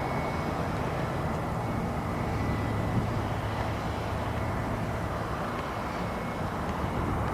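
Aircraft engine noise at an airport: a steady low drone with rumbling noise.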